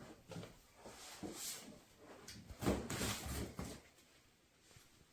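Faint handling noises: a few soft knocks and rubbing sounds that stop about four seconds in.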